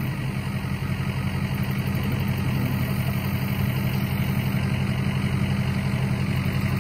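Ford pickup truck's engine idling steadily close by, a low even rumble.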